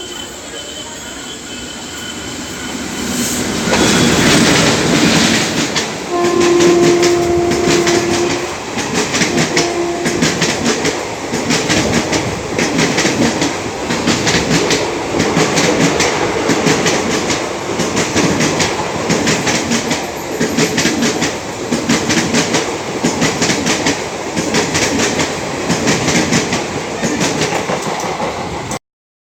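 An express train hauled by a WAG-7 electric locomotive passing at speed. The locomotive rushes past about four seconds in, and its horn sounds twice soon after. The coaches' wheels then clatter rhythmically over the rail joints until the sound cuts off just before the end.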